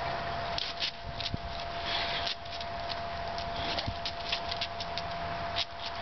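English bulldog sniffing and breathing with its nose to the pavement, with many short scrapes and clicks as it moves about; a steady faint hum underneath.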